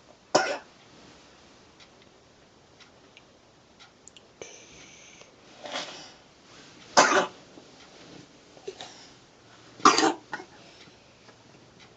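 Asthmatic coughing: four short coughs a few seconds apart, right at the start and at about six, seven and ten seconds in, with a couple of smaller coughs after the later ones.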